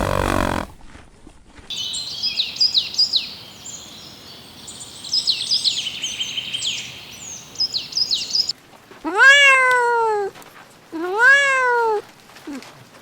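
The tail of a horse's whinny, then many small birds chirping rapidly with quick high falling notes for several seconds. Near the end, a cat meows twice, each meow a drawn-out call that rises and falls in pitch.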